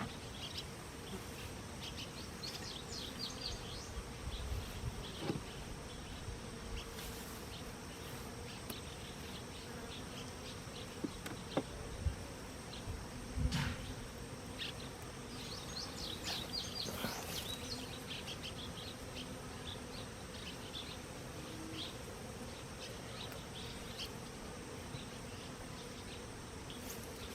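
Honeybees buzzing steadily around an opened, knocked-over hive, with a few knocks around the middle.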